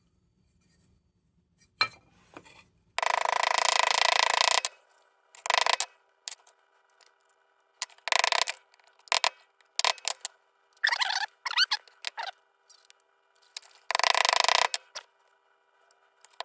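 Repeated loud bursts of metal-working noise from work on a bent sheet-metal lantern part. The bursts are each from a fraction of a second to about a second and a half long, with a short squeaky stretch about eleven seconds in.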